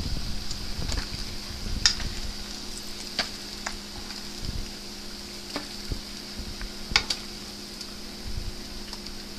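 Battered smelt deep-frying in a pot of vegetable oil: a steady sizzle with scattered sharp clicks and crackles, the loudest about two seconds and seven seconds in.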